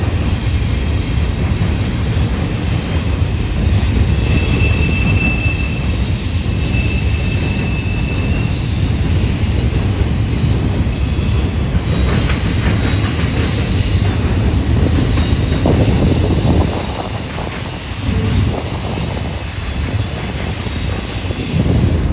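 A long double-stack intermodal freight train rolling past, a steady rumble of steel wheels on rail. Faint, high wheel squeal rises twice about four to eight seconds in. The train briefly eases in loudness near the three-quarter mark.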